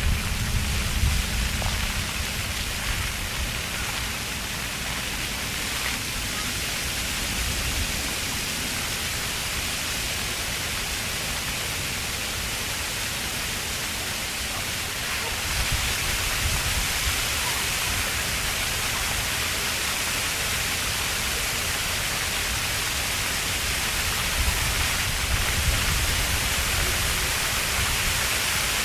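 Park floor fountain's water jets spraying and splashing onto the pavement, a steady hiss that gets louder about halfway through, with children's voices mixed in.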